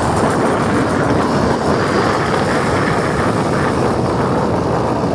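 Motorized bicycle's engine running steadily under way, with wind noise on the microphone.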